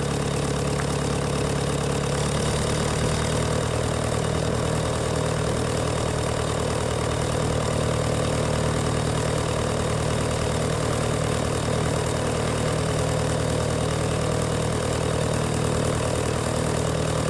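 Nuffield tractor engine running steadily as the tractor drives along, heard close to its upright exhaust stack. The engine note holds an even pace with no change in revs.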